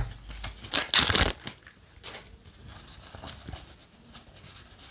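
Yu-Gi-Oh! trading cards being flipped through and slid against each other in the hands, with a louder rustling swipe about a second in, then softer card sliding and light taps.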